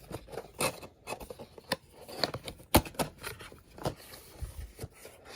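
Cardboard packaging handled by hand: irregular scrapes, clicks and knocks as a taped box is pulled at to get it open.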